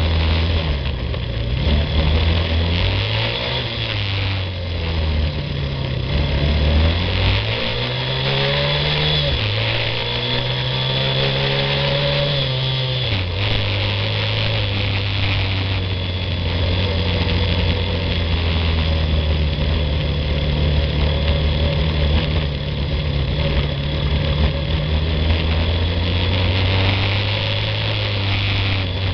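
Yamaha ATV engine running while riding, its pitch rising and falling with the throttle for about the first dozen seconds, then holding steady.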